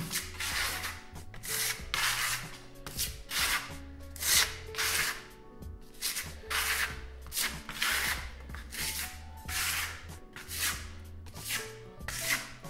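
A hand trowel scraping and spreading decorative wall coating across a wall, in quick repeated sweeping strokes, a little under two a second.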